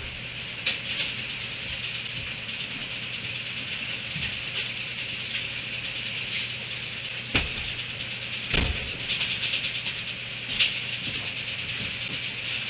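A donkey pulling hay from a metal hay rack, the rack rattling and giving a few sharp knocks, over a steady high hiss.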